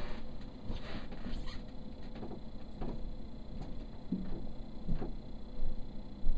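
Scattered taps, clicks and rustles from a cardboard-and-plastic toy train box being handled, with a couple of duller thuds after about four and five seconds, over a faint steady hum.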